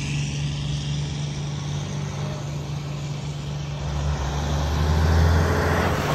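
Heavy trucks' engines rumbling low and steady as antique trucks drive past. The rumble swells about four seconds in as a pickup and then a big Brockway tractor come by.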